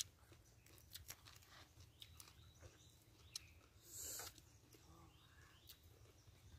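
Near silence with faint eating sounds: scattered small clicks of chopsticks and mouth noises, and one short breathy hiss about four seconds in.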